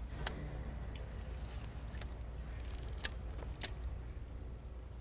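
Fishing tackle being handled on a boat: a few sharp clicks from rods and reels as two anglers cast and retrieve, over a steady low rumble.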